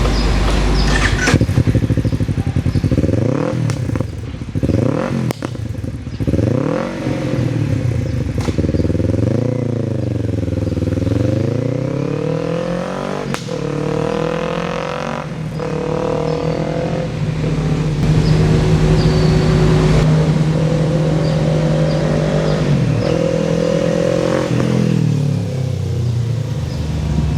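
Kawasaki KLE 500's parallel-twin engine through an AVIONIC slip-on/full-system aftermarket exhaust, revved in a string of quick blips, then pulled up in longer rises to a steady high-rev stretch before the revs drop away near the end.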